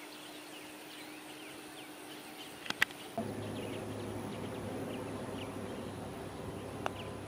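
Small birds chirping repeatedly in the background. There is a single sharp click a little under three seconds in, and just after it a steady low hum joins the background.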